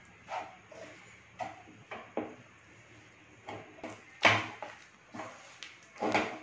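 Spatula scraping and stirring a thick peanut and milk-powder mixture in a nonstick pan, in a series of short, irregular strokes. The loudest scrapes come about four seconds in and again near the end.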